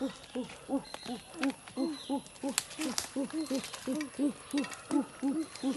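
A fast, even series of short low hooting calls, about three a second, each note rising and falling in pitch, with a few faint clicks.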